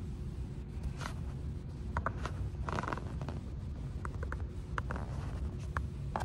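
A metal fork scraping and tapping in a paperboard takeout box of food, in short irregular scrapes and clicks, the longest about three seconds in. A steady low hum runs underneath.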